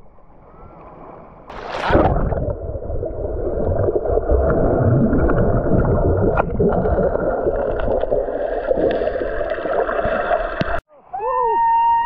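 Fast stream water rushing and gurgling close to the microphone, starting with a splash about two seconds in. It cuts off suddenly near the end, and a few gliding tones follow.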